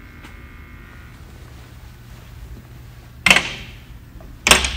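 Two loud, sharp bangs a bit over a second apart, near the end, each with a brief ringing tail, after a faint steady electrical hum in the first second.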